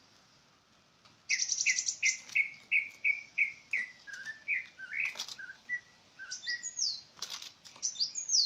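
A bird singing. About a second in, it starts a run of repeated whistled notes, about three a second, then moves into a varied phrase of shorter notes with a few sharp clicks. It ends with high notes that slide downward.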